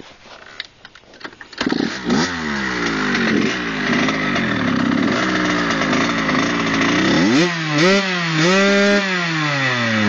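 Kawasaki KX80 two-stroke engine, with a V-Force 3 reed valve and Pro Circuit exhaust pipe, firing up under two seconds in and running at an uneven, wavering idle. In the last few seconds it is revved in repeated quick blips, the pitch rising and falling each time.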